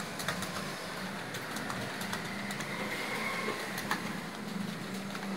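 Computer keyboard keys clicking irregularly as someone touch-types, over a steady background of street-traffic noise and a low hum.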